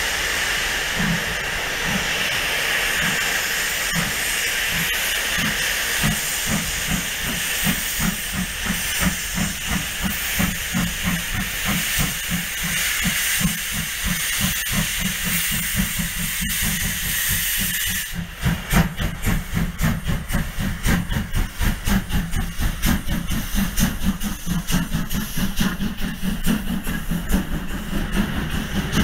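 Steam locomotive pulling away with a train: loud steam hissing from around its cylinders over exhaust chuffs that quicken as it gathers speed. About 18 s in the hiss cuts off abruptly, and steady rhythmic beats of the moving train carry on.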